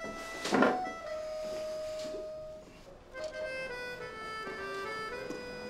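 Background music of held reedy melody notes, with a short loud noisy burst about half a second in and a brief dip in the music near the three-second mark.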